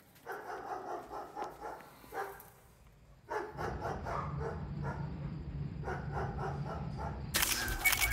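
A dog barking in short bouts over a low steady hum, then a loud electronic music sting cuts in near the end.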